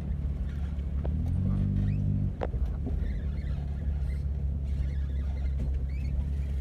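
Vehicle engine running steadily under a haze of wind noise. About a second in, the engine note shifts for about a second, then settles back with a sharp click.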